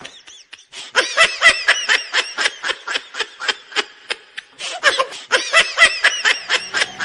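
High-pitched snickering laughter in rapid, evenly repeated bursts, starting about a second in, breaking off briefly a little past the middle, then going on to the end.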